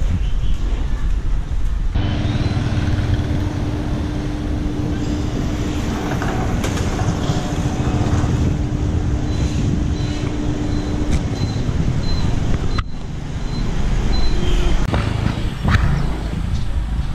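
Street ambience of motorbike traffic, with a steady low rumble and a held engine-like hum for much of it. The sound changes abruptly a few times, like cuts between clips.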